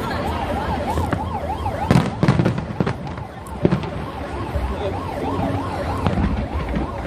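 A 119 ambulance siren wails rapidly up and down, about three cycles a second. Fireworks bang several times over it, loudest about two seconds in.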